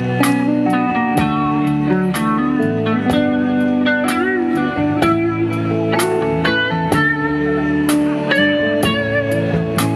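A live blues-rock band playing amplified. An electric guitar plays a lead line with bent and wavering sustained notes over electric bass and a steady beat.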